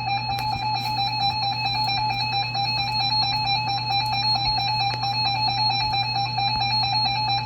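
Emergency alert attention tone: a loud, steady electronic tone with a rapid flutter, held throughout, marking that a warning message is about to be read. A low steady hum lies beneath it.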